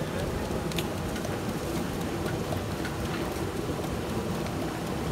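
Steady rushing of a shallow river flowing over rocks, with a few faint clicks scattered through it.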